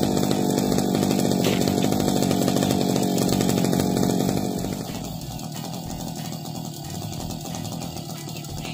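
Small two-stroke engine of a backpack brush cutter running steadily at idle. It turns noticeably quieter about four and a half seconds in and keeps running.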